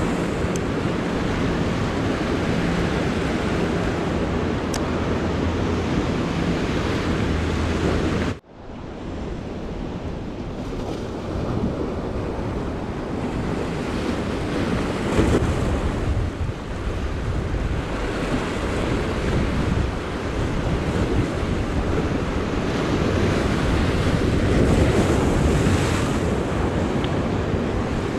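Ocean surf breaking and washing against the boulders of a rock jetty, with wind buffeting the microphone in a steady rumbling roar. The sound cuts off abruptly about eight seconds in and picks straight up again.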